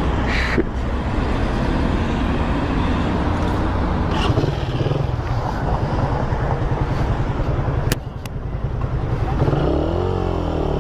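Small motorcycle engine running on the move, with wind rushing over the microphone. There are two sharp clicks about eight seconds in, and near the end the engine note rises and falls as the speed changes.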